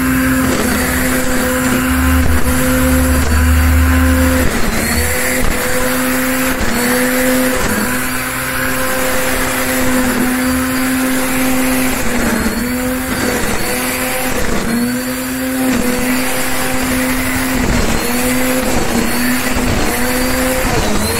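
Black & Decker GrassHog 800 W electric string trimmer running with a steady high hum, its pitch sagging briefly every second or two as the spinning line bites into the grass. A low rumble joins it for a couple of seconds near the start.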